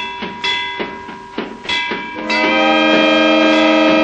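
A train's chord whistle sounding a long held blast that breaks off, with rhythmic chuffs for a couple of seconds, then a second long blast starting about two seconds in.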